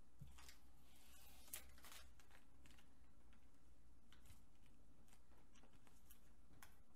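Near silence: a low steady hum with faint scattered clicks and a brief rustle about a second and a half in.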